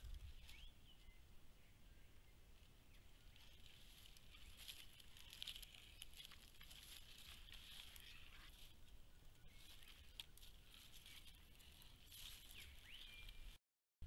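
Near silence: faint bushland ambience with a few faint, short high chirps and light rustling. The sound cuts out completely just before the end.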